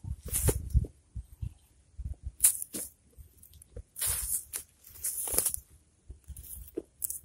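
Garden fork being worked into grassy soil, a rubber boot stepping on it to drive the tines in, with crunching and rustling of turf and earth in four or five separate bursts, alongside footsteps on grass.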